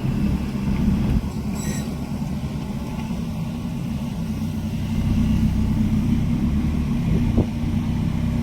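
A vehicle engine running steadily at low revs, a little louder from about five seconds in.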